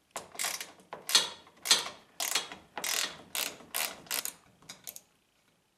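Hand ratchet with a 10 mm socket backing out a roof-mounting bolt: about ten quick ratcheting strokes, roughly two a second, that stop about five seconds in.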